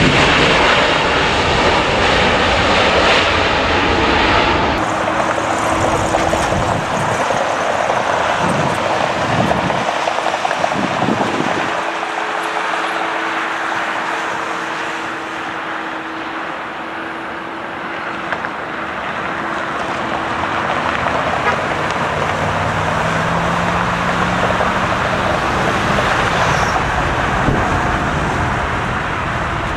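Boeing 787 Dreamliner jet engines: a loud roar at takeoff thrust that changes abruptly after about five seconds to a quieter, steady jet-engine whine with a held tone, from another 787 moving along the runway. A lower tone rises and falls briefly past the twenty-second mark.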